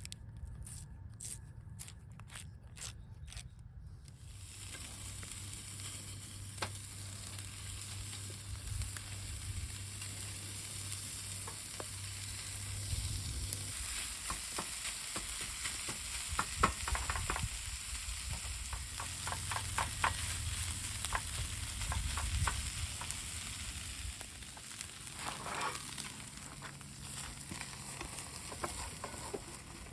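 Corned beef hash frying in a pan: a steady sizzle, with occasional scrapes and taps of a utensil stirring it.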